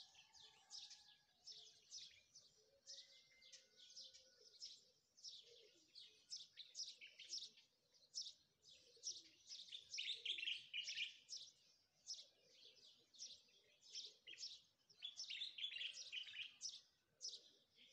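Faint birdsong: many small birds chirping in quick, high, rapid trills, busiest about halfway through and again near the end.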